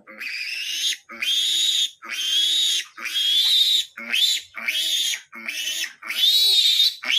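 Three-day-old piglet squealing in distress while being held and castrated: about nine loud, high squeals in quick succession, each under a second, several rising in pitch.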